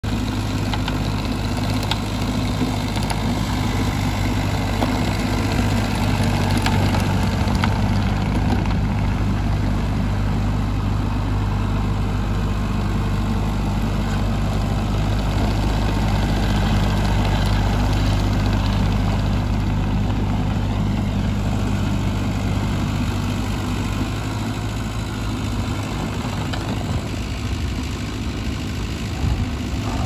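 Engine of a 2020 Vermeer S925TX stand-on tracked mini skid steer running steadily while the machine drives around, a constant low engine note that eases slightly near the end.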